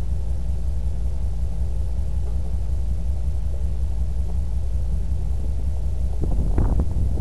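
Truck engine running with a steady low rumble while driving, with a short louder noise about six seconds in.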